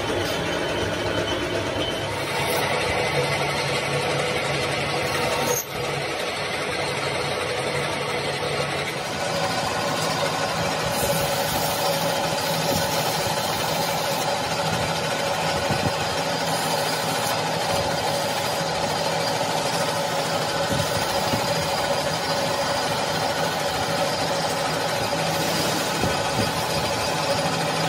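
Metal lathe running steadily, a continuous mechanical hum with a few held tones, with a brief drop about five and a half seconds in.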